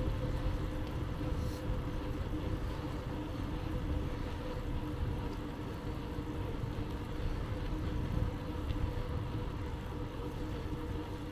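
Riding noise of a bicycle, picked up by a handlebar-mounted camera: a steady low rumble of tyres and wind with a faint steady hum underneath.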